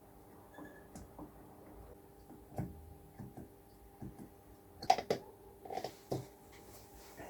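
A few light clicks and knocks of things being handled, the loudest pair about five seconds in, over a faint steady hum.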